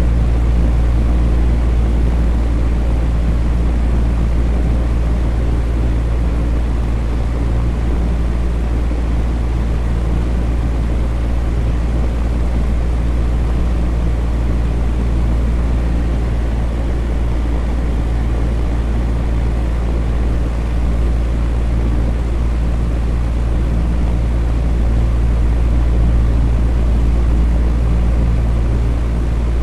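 Electric fan running steadily: a low, even hum under a constant whoosh of moving air, with no change in speed.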